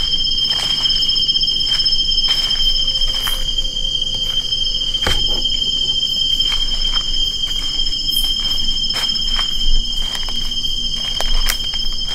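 Insects singing in a steady, unbroken high-pitched drone on two pitches, with scattered light taps and knocks.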